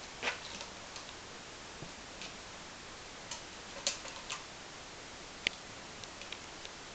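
A cat's claws catching and scraping on a sisal-rope scratching post: short, irregular scratchy ticks, the loudest near the start, about four seconds in and about five and a half seconds in, over a steady hiss.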